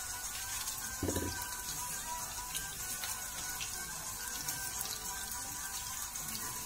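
Sliced onions sizzling in hot oil in a frying pan: a steady hiss with fine crackles. A brief dull thump about a second in.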